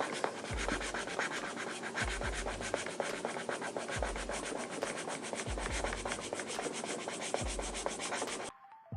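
Quick back-and-forth colouring strokes scratching across paper, over background music with a deep bass note about every second and a half; everything drops out briefly near the end.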